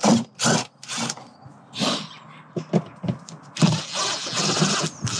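Cordless DeWalt impact driver undoing wheel arch liner screws: several short bursts on the trigger in the first couple of seconds, then a longer run from about three and a half seconds in.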